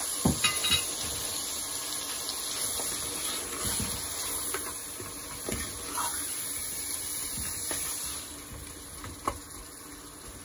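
Tomatoes and ground spices sizzling in hot oil in a steel pot while a wooden spoon stirs them, with a few short knocks of the spoon against the pot. The sizzle drops off about eight seconds in.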